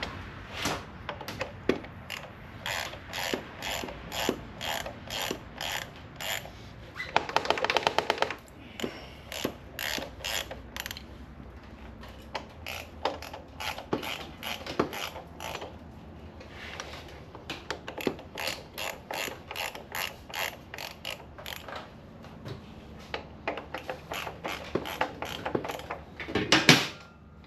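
Ratchet mechanism clicking in a long series of strokes, about one to two a second, with two faster, denser ratcheting runs about seven seconds in and near the end.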